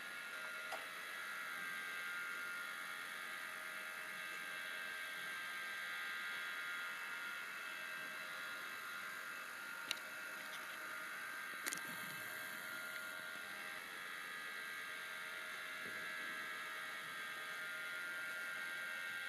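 A small motor whirring steadily with a high whine, with a few sharp clicks: one about a second in and two around the middle.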